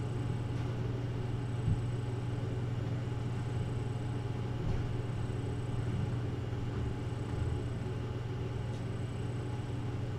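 Steady low electrical or mechanical hum with a thin high whine and background hiss, broken by a few faint soft knocks, one about two seconds in.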